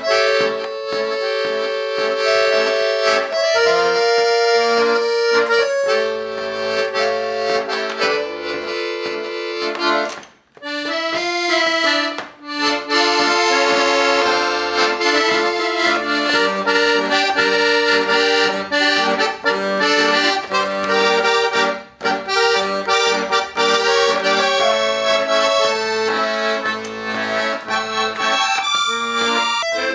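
Accordion playing a tune: a melody over chords and bass notes, with a brief break about ten seconds in.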